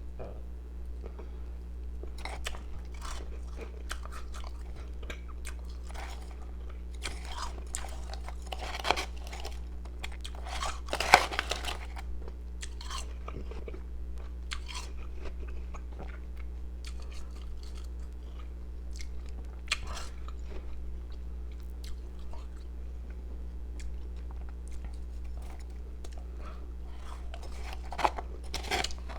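A person biting and chewing pieces of powdery, carbonated ice: irregular crunches, the loudest about nine and eleven seconds in, over a steady low hum.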